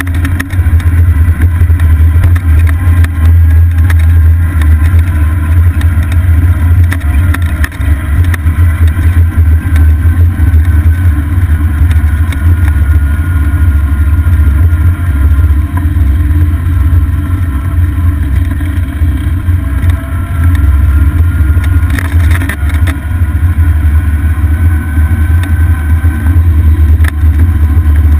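Golf cart driving along a paved road, heard from a camera mounted on the cart: a loud, steady low rumble of wind and road noise, with a faint whine that slowly rises and falls in pitch and a couple of short jolts in the second half.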